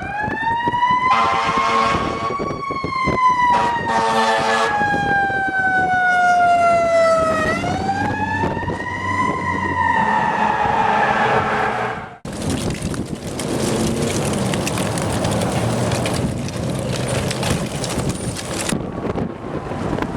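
Emergency vehicle siren wailing, its pitch slowly rising and falling, with two short horn blasts in the first five seconds. About twelve seconds in it cuts abruptly to strong wind buffeting the microphone.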